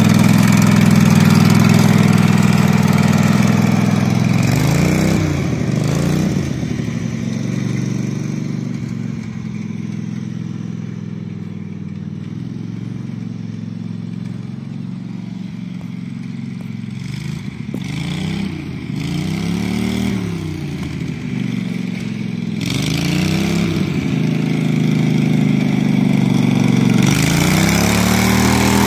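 Husqvarna riding mower's 18 hp Kawasaki V-twin engine running as the mower is driven around: loud and close at first, fading as it moves off, then louder again. Its pitch rises and falls several times as it passes and revs.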